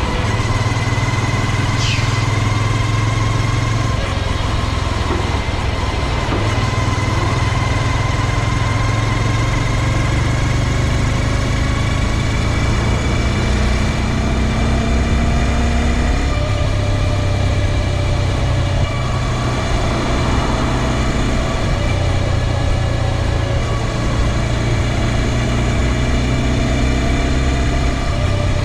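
A 2022 Honda Grom's 125 cc single-cylinder engine runs steadily with no break. This is the bike whose persistent drivetrain noise the owner says was not cured by a new o-ring drive chain.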